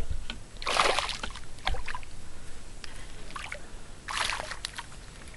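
Hooked bass splashing at the surface beside the boat as it is reeled in: a few short splashes, about one, two and four seconds in.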